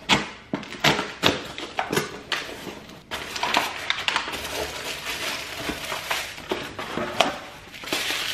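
Cardboard box being opened by hand and paper packing material crinkled and rustled as items are pulled out. Sharp crackles and snaps come over the first few seconds, then steady rustling.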